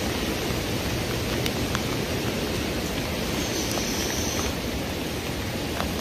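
Steady rush of rain falling on wet pavement mixed with the storm-swollen creek's floodwater, with scattered faint clicks of drops.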